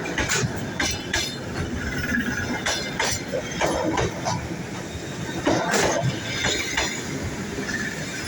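Train rolling slowly through a station, with irregular clanks and knocks from the wheels over rail joints and a couple of brief wheel squeals.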